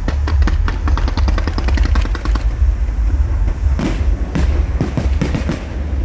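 Fireworks going off: a fast run of rapid crackling pops, then from about four seconds in a string of louder, more spaced bangs.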